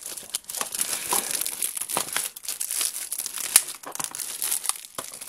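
Plastic shrink-wrap on a Blu-ray case crinkling and crackling irregularly as fingers pick and pull at it to get it off.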